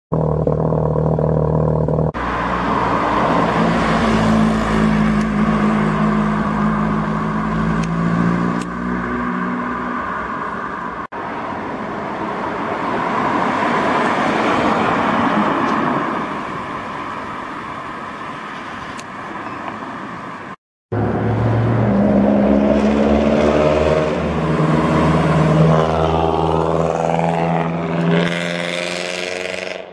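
Performance car engines and exhausts in a run of short clips, among them a Ford Focus RS, each car revving and accelerating away. The engine note climbs in pitch as the revs rise, with abrupt cuts between clips.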